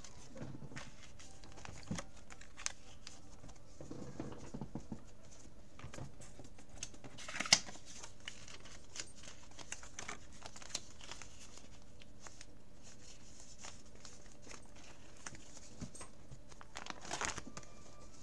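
Trading cards and clear plastic binder sleeve pages being handled: soft rustling and crinkling with scattered light clicks, one sharper snap about seven and a half seconds in, and a longer plastic rustle near the end as a binder page is turned.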